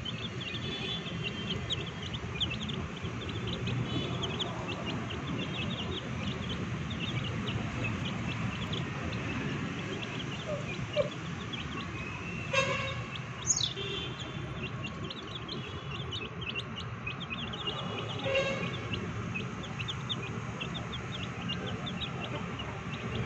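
Young chickens peeping as they feed, many short high cheeps scattered throughout over a steady low background noise, with a few louder calls about halfway through.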